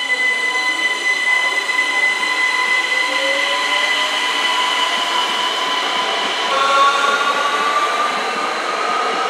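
ÖBB Cityjet (Siemens Desiro ML) electric multiple unit moving past, its traction motors and inverters giving a steady high-pitched whine of several tones over wheel and rail rumble. About six and a half seconds in, a new set of tones takes over and slowly rises as the train gathers speed.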